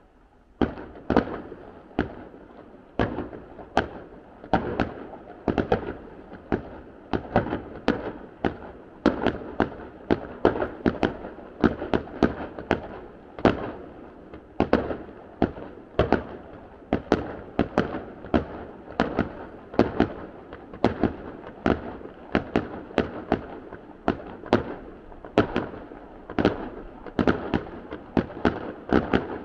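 Fireworks display: a rapid, irregular run of sharp bangs, two or three a second, starting about half a second in and going on without a break.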